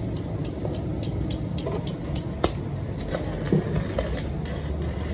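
A machine running steadily with a low hum and a fast, even ticking of about five or six a second that fades out about two seconds in, with a few sharp metallic knocks, the loudest about halfway through.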